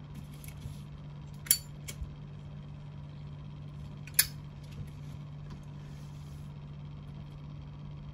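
Metal Zippo lighter handled: two sharp metallic clinks about two and a half seconds apart, with a few fainter ticks in between and after.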